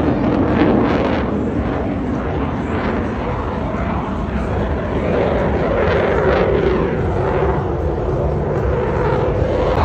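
Engine noise of a fixed-wing aircraft flying past: a loud, steady rumble with a drone that rises slightly in pitch about halfway through.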